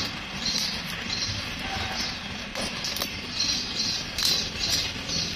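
Thin young bamboo shoots snapping with sharp pops as they are broken off the clump by hand. Several separate snaps come over a rustle of dry bamboo sheaths and leaves.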